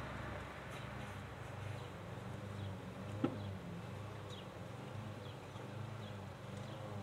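A flying insect buzzing close to the microphone as a low, wavering drone. A few faint, short, high falling chirps and one sharp click about three seconds in.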